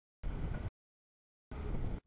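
Freight cars rolling past on the rails, heard only in two short choppy bursts with the sound cutting out completely in between: the audio feed is dropping out.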